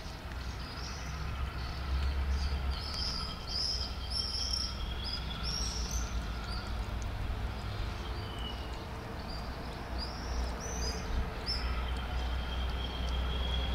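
Small birds chirping: a quick run of short, high chirps from about two seconds in until near the end, over a low steady rumble.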